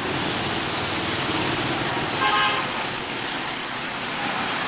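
Steady city street traffic noise with a short vehicle horn toot a little over two seconds in.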